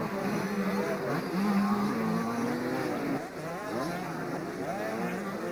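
Several motocross dirt bikes racing together, their engines revving up and down in overlapping rising and falling whines as the riders accelerate and shift.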